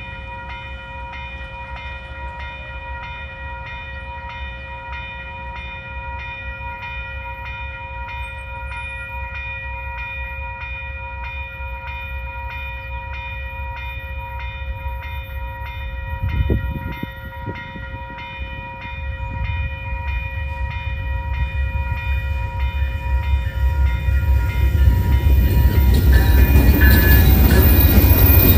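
Railroad crossing warning bell ringing in rapid, even strikes, with a short low thud about halfway through. The low rumble of an approaching Amtrak train then rises and is loudest near the end, as its two GE P42DC diesel-electric locomotives pass.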